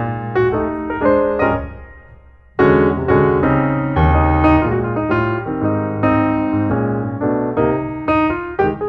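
Background piano music, chords and melody notes struck one after another; it fades away about two seconds in and comes back in loudly half a second later.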